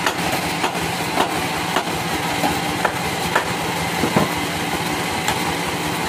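Band sawmill machinery running steadily, with irregular sharp clicks and knocks over the running noise.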